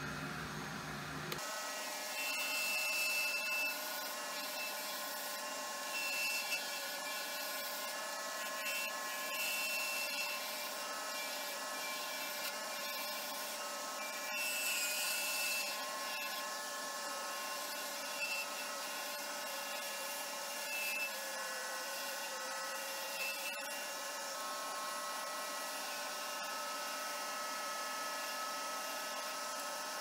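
Wood lathe spinning a sassafras pen blank with a steady whine while a turning tool cuts it down, the cutting noise swelling every few seconds as the tool bites.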